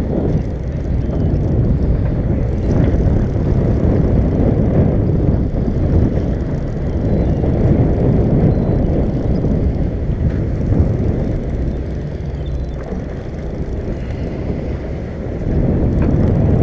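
Steady low rumble on the deck of a fishing boat at sea: wind buffeting the microphone over the noise of the boat's engine, with no distinct events.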